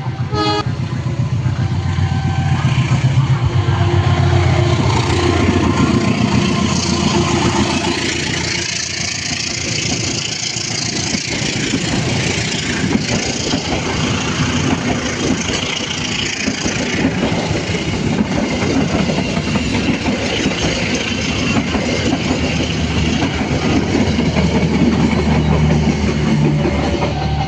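Motor vehicle engines running and revving in steady, loud traffic noise, with a brief rapid rattle of clicks just after the start.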